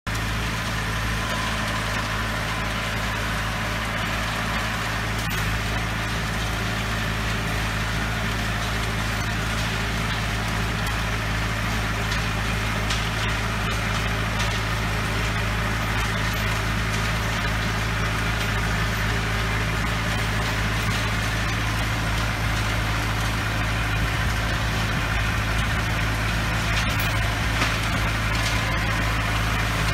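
Antonio Carraro TRX 9900 compact tractor's engine running steadily with a deep, even hum as it drives a rear-mounted rotavator tilling soil.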